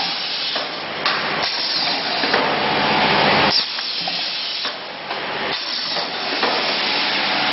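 Rotary cup filling and sealing machine running, its pneumatic cylinders and valves giving off a series of hisses of air of varying length.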